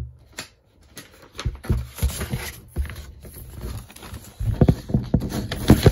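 Close handling noise as a vinyl record and its sleeve are moved about: irregular knocks, thumps and rustling, with a cluster of louder thumps near the end.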